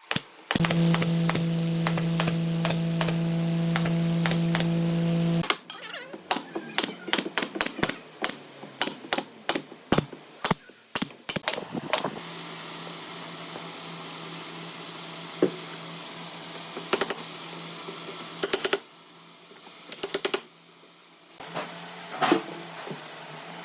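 An electric power tool's motor runs steadily for about five seconds, then stops. A long run of light, quick taps and knocks follows, over a faint steady hum.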